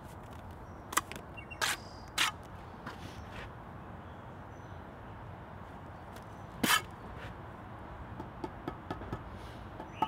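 Bricklaying with a steel trowel: a few sharp clicks and scrapes of the trowel against brick and mortar, and one louder knock about two-thirds of the way through. Near the end come light, quick taps as the trowel handle beds the brick into the mortar.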